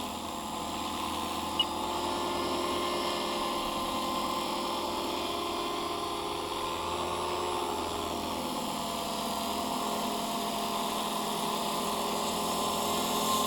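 Scale RC helicopter built on Align T-Rex 450 mechanics, hovering: the steady whine of its electric motor and rotors, the pitch wavering slightly as the head speed shifts.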